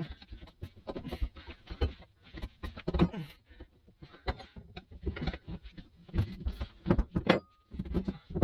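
Motion Pro tire spoons levering a stiff motorcycle tire bead over the wheel rim: irregular knocks, clinks and scrapes of metal against rim and rubber, with a short metallic ring near the end.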